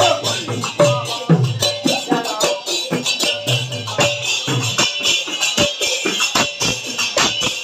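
Devotional kirtan music with fast, jingling hand percussion like shakers or small cymbals keeping a dense, steady beat over a melodic line.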